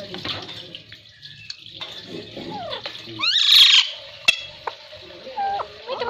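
Alexandrine parakeets calling: soft gliding chatter, then one loud harsh squawk about three seconds in, a sharp click a second later, and rising and falling whistled notes near the end.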